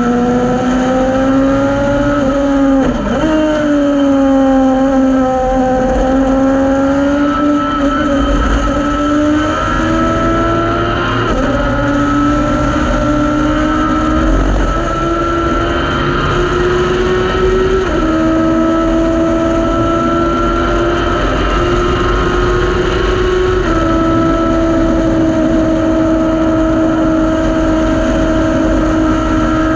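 Thunder Roadster race car's engine heard from its open cockpit, running hard on track. The pitch climbs slowly with speed, dips briefly about 3 seconds in, and shifts in steps at gear changes about 18 and 24 seconds in.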